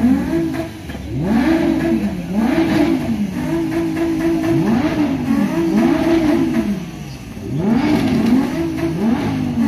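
Mercedes-AMG GT's twin-turbo V8 revved hard over and over, about eight blips that rise and fall in pitch, some held briefly at the top, with a couple of short pauses between bursts.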